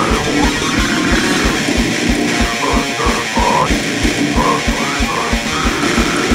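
Extreme metal track with loud distorted electric guitar and bass over a fast, steady kick drum.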